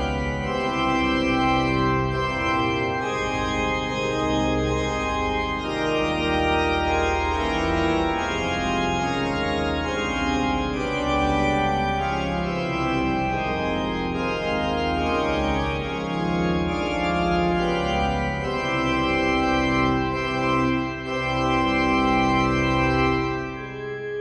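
Organ music: sustained chords over a deep bass, the harmony shifting every second or so.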